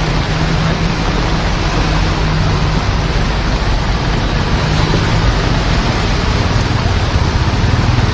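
Heavy rain on a car being driven, an even loud hiss with a steady low engine hum underneath.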